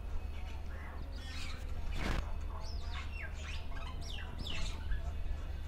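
Birds chirping, with many short rising and falling calls that are busiest in the second half, over a steady low hum. A brief burst of hiss-like noise comes about two seconds in.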